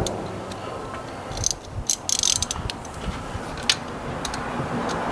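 Socket ratchet working on the AC compressor's mounting bolts: scattered metal clicks and clinks, with a short rattling burst about two seconds in.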